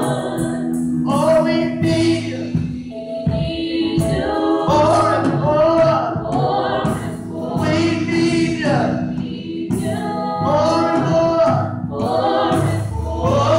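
Gospel singing: several women's voices singing together into microphones, over a steady low backing.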